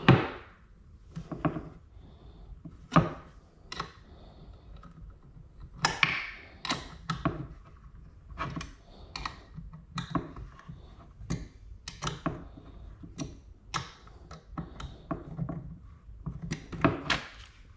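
Irregular clicks, taps and light knocks of small metal hardware, a bracket, screw and hex key, being handled and fitted against a hard plastic part, with a few sharper knocks among them.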